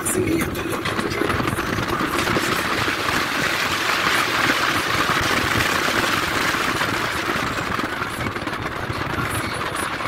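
Steady engine and road noise from a car on the move.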